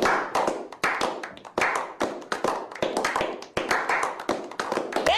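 A small group of men clapping their hands, with loose, unsynchronised claps at about three or four a second.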